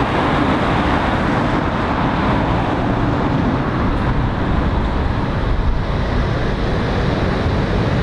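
Road traffic: a box van drives past with tyre and engine noise that fades away, and more vehicles grow louder near the end as lorries approach.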